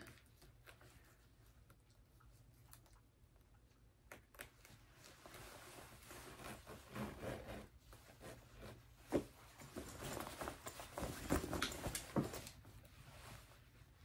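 Faint rustling of a black leather jacket, with scattered small clicks, as its zipper is worked and fastened up the front. It starts about four seconds in, with the sharpest click about nine seconds in.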